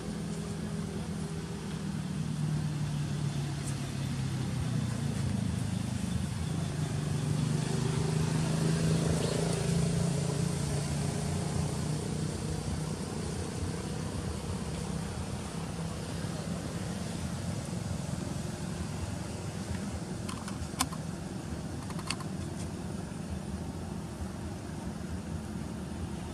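A motor vehicle's engine hum that swells to its loudest about a third of the way through, then eases back to a steady drone. Two sharp clicks come near the end.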